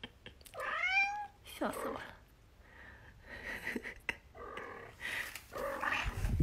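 Very young kitten mewing: a high call about half a second in that rises and then falls, followed by a string of shorter, softer mews. A low bump comes near the end.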